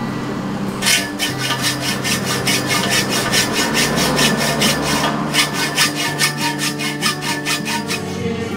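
Hacksaw cutting a metal pipe: a run of quick, even back-and-forth strokes that starts about a second in.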